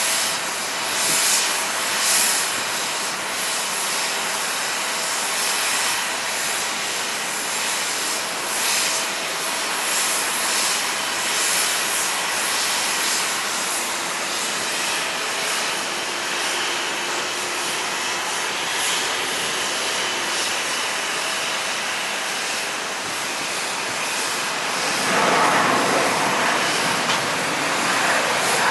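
Jet airliner engines running, a steady rushing hiss with a faint whine, swelling louder near the end.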